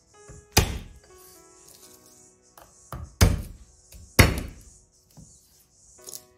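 A chef's knife thudding down on garlic cloves on a wooden cutting board, crushing them: three heavy thuds with a few lighter knocks, over soft background music.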